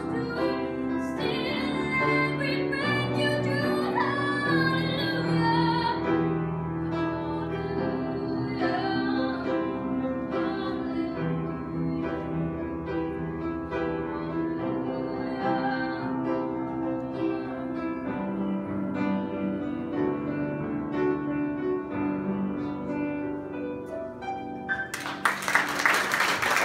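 A young woman sings a Christmas hymn to upright piano accompaniment. Near the end the song stops and applause breaks out.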